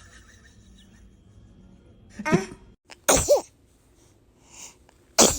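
A baby sneezing: short, sharp sneezes about two to three seconds in and again just before the end.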